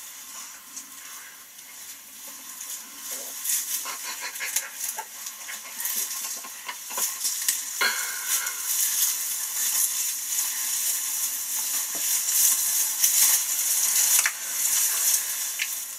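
Dry tall grass rustling and crackling close to the microphone as someone crawls through it, with stalks brushing against clothing. It is a dense crackle of small clicks that grows louder after a few seconds.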